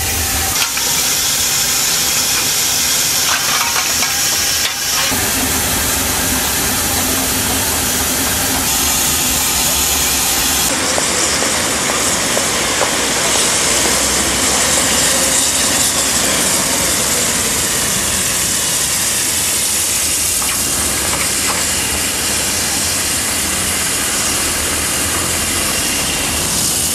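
Steam bus venting a steady, loud hiss of steam.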